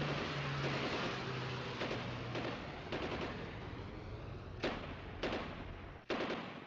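Gunfire: about six sharp single shots at irregular intervals over a steady rushing noise, with a low hum in the first couple of seconds.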